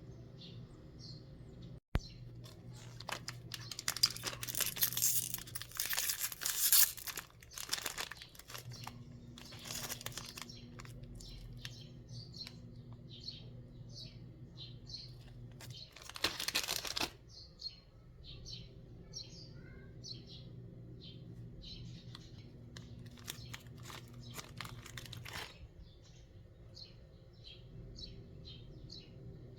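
Oreo cookie packaging being torn open and crinkled in several loud bursts, with small birds chirping repeatedly throughout over a steady low hum.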